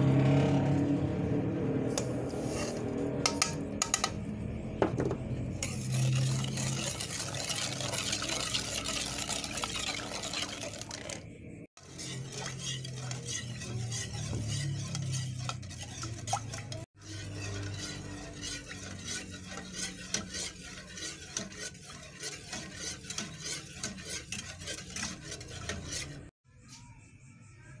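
A metal spoon stirring and scraping around a metal pot of water and dissolving jelly and Pop Ice powder, clinking against the pot's sides. The sound cuts out briefly three times.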